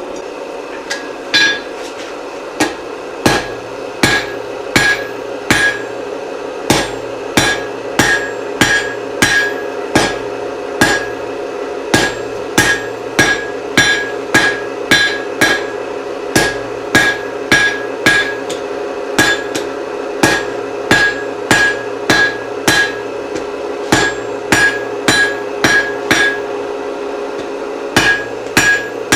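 Blacksmith's hand hammer striking hot steel on an anvil while forging a chisel, about two blows a second, each with a ringing note, with a short pause near the end. A steady hum runs underneath.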